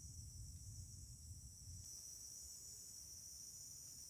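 Faint, steady high-pitched chorus of insects such as crickets, over a low rumble that eases about two seconds in.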